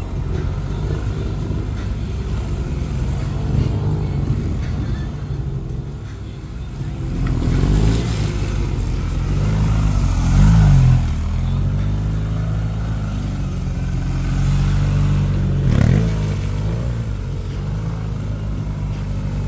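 Motorcycle engines running at low speed, the revs rising and falling several times, with the strongest rise about halfway through.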